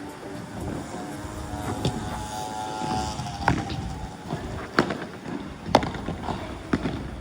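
Padel ball struck back and forth with rackets in a rally, about five sharp hits roughly a second apart, over the steady rumble of strong wind on the microphone.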